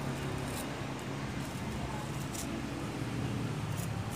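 A few faint, short scrapes of a putty knife scoring grooves in fresh cement plaster, over a steady low background hum.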